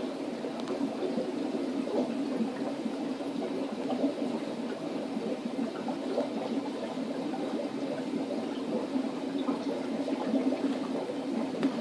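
Steady bubbling and gurgling of water from the aquarium filtration, many small bubble pops over a constant watery rush.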